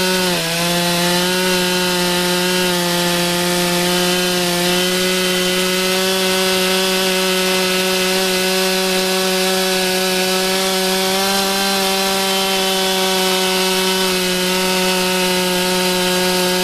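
Stihl 661 two-stroke chainsaw, fitted with a 36-inch bar and ripping chain in a Granberg Alaskan chainsaw mill, running under load as it rips lengthwise through a log. The engine note is steady, with a brief dip in pitch about half a second in.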